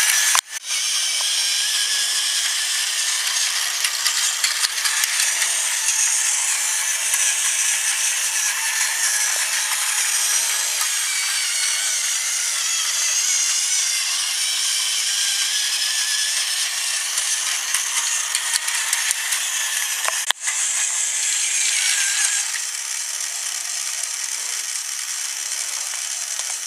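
Battery-powered Tomy toy train running on plastic track: a steady whirr and rattle of its small electric motor and gears. There are two very brief dropouts, just after the start and about 20 seconds in, and the sound gets slightly softer a couple of seconds later.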